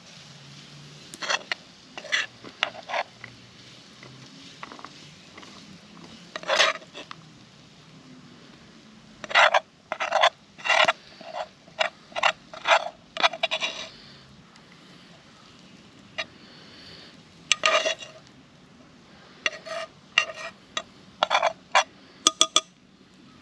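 Rice being scraped out of a frying pan onto a plate with a utensil: short scrapes and knocks of the utensil against the pan, coming in bursts, busiest from about nine to fourteen seconds in and again near the end.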